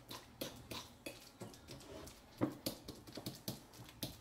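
A fork mashing ripe bananas on a plate: irregular clicks and scrapes of the tines against the plate, several a second, the loudest about two and a half seconds in.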